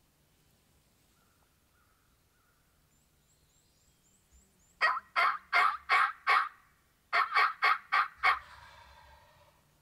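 Wild turkey yelping: two loud runs of evenly spaced yelps, five notes, a short pause, then six more, fading out just after. A small bird chirps faintly before them.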